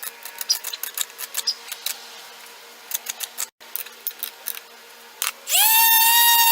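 Scattered light clicks and taps, then about five seconds in a 1/4-sheet electric palm sander starts up with a quick rise in pitch and runs with a steady high whine.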